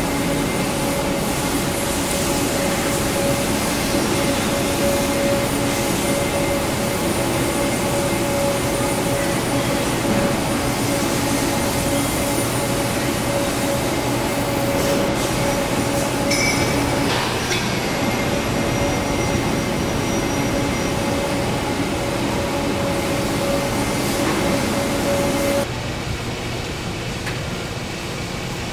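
Metalworking factory machinery running: a steady, dense mechanical noise with a constant hum-like tone through it. Near the end it cuts off abruptly to a quieter machine noise.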